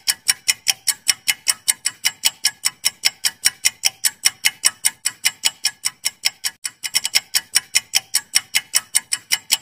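Clock-ticking sound effect of a quiz countdown timer: sharp, even ticks about four a second, cutting off suddenly near the end.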